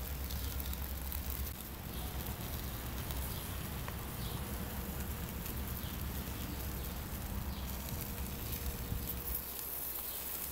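Chicken wings sizzling and crackling on a charcoal grill as barbecue sauce is brushed onto them, a steady hiss over a low, constant rumble.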